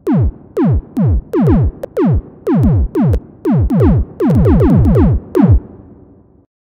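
A run of synthesized drum hits, each a short tone that drops sharply in pitch into a low thump. They come unevenly, crowd together about four to five seconds in, then stop just before the end.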